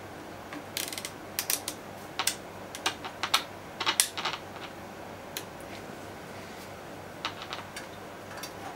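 Clicks of a Realistic (Tandy) CB radio's rotary channel selector being turned through its detents, in quick irregular runs through the first half and a few more near the end, over a steady low hiss and hum.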